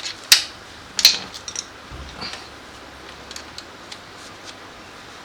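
Two sharp plastic clicks about a second apart, then a few faint ticks: a small plastic linkage-rod clip being pried up off a car door lock actuator.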